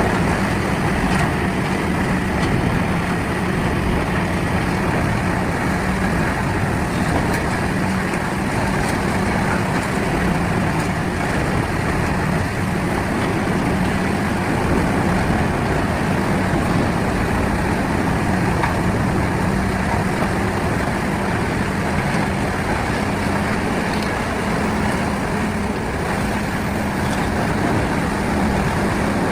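Large wood-chipping and grinding machine running steadily, a loud constant engine-and-rotor drone with a steady low hum.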